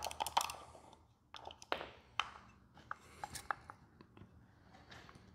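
Light clicks and clinks of the metal parts of a Ford scroll A/C compressor as they are handled and pulled apart by hand: a quick cluster at the start, then single taps every half second to a second.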